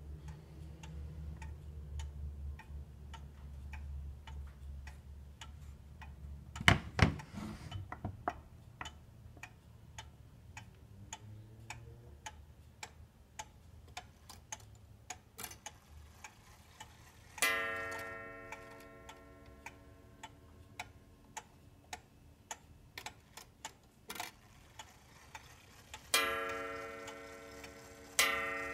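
Antique Vienna wall clock ticking about twice a second, with a couple of loud knocks about seven seconds in. As the minute hand is advanced by hand, the hammer strikes the coiled wire gong: one ringing strike that fades slowly, a little past halfway, then two more near the end.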